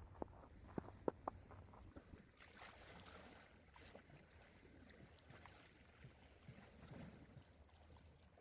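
Near silence: a few faint clicks in the first second and a half, then low background hiss.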